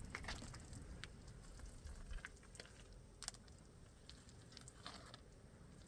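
Faint, scattered light clicks and taps over a quiet background.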